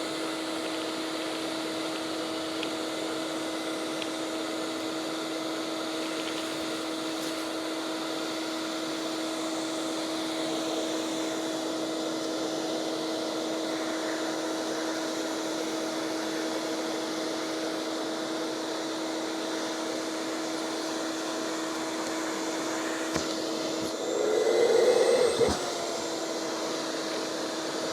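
Shop vacuum running with a steady hum while it sucks lint out of a dryer vent duct. Near the end, a louder rush lasts about a second and a half, and the motor's pitch dips briefly under the load.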